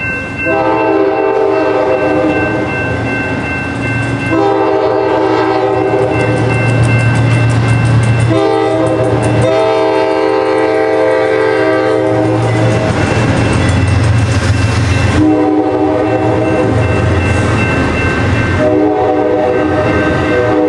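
Passenger train's multi-chime air horn sounding several notes at once in a series of long blasts of a few seconds each, over the low rumble of the train passing.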